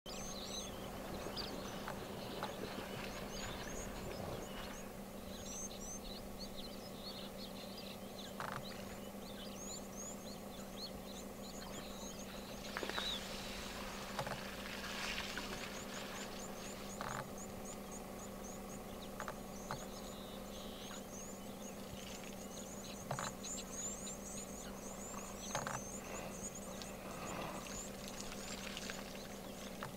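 Small birds chirping throughout over a steady low hum. About halfway through comes the splash and hiss of an African elephant blowing water out of its trunk, with a few soft knocks scattered through.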